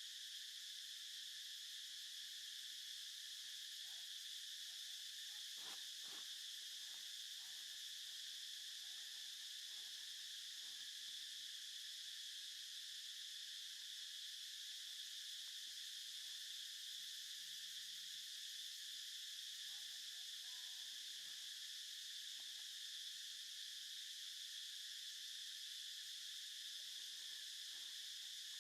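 Steady chorus of insects such as crickets or cicadas, a continuous high-pitched drone that doesn't change, with only faint scattered sounds beneath it.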